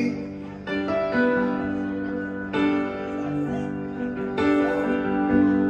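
Upright piano playing slow, held chords, a new chord struck about every two seconds.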